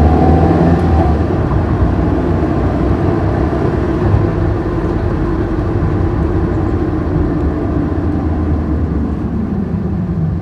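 Engine and road noise heard inside a moving car's cabin: a steady low rumble. A faint whine dies away about a second in.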